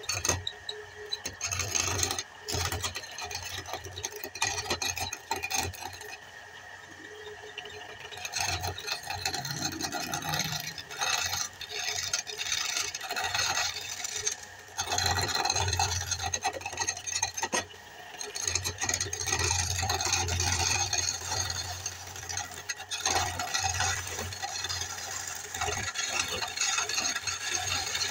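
Hand-held turning tool cutting a long wooden spindle spinning on a lathe: uneven rasping scrapes that swell and fade as the tool works along the wood. A steady high whine runs under it for the first eight seconds or so.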